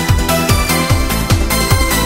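Fast electronic dance music: a steady kick drum about three beats a second under sustained synth chords.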